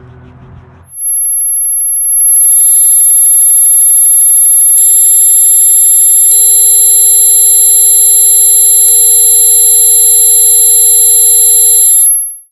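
A piercing high electronic tone starts about a second in. More steady tones join it in steps, building to a loud, dense ringing that cuts off suddenly near the end. It is a synthesized ear-ringing effect.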